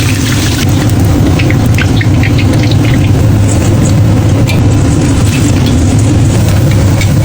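Kitchen range hood fan running with a loud, steady low drone, with scattered light crackles of food cooking in the wok.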